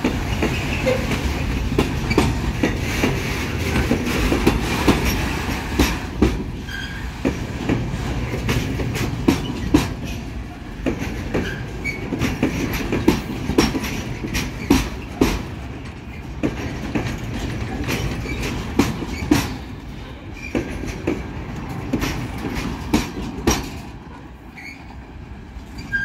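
Freight train wagons rolling past: a steady low rumble with the clickety-clack of wheels over rail joints and a few short high wheel squeals, getting quieter near the end.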